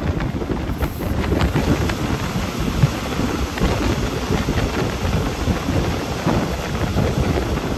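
Wind buffeting the microphone over the steady low rumble of a Class 810 railbus on the move, with a few sharp knocks in the ride.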